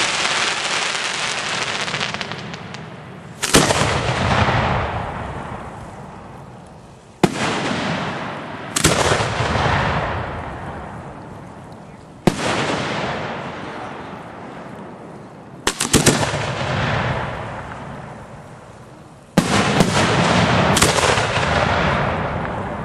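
Fireworks aerial shells bursting overhead: about seven sharp bangs a few seconds apart, each trailing off over several seconds in a fading crackle and echo.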